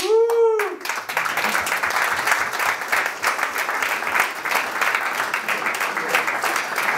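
An audience applauding: dense, steady clapping from many hands. It opens with one short spoken word just before the clapping builds.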